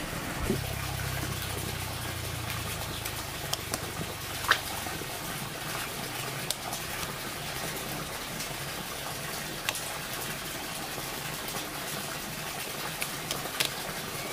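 Cluster figs being picked by hand from a fig trunk: a few sharp snaps of fruit and stems over a steady background hiss, with a low hum for the first few seconds.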